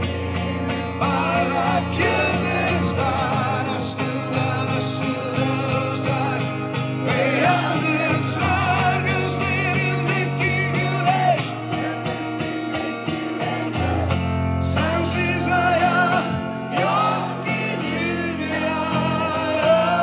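Live rock band performing a song: acoustic guitar, bass and drums under a sung melody, recorded from the audience.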